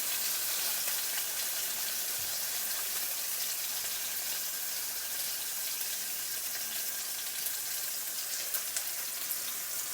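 Pork chops sizzling steadily in hot oil in a skillet.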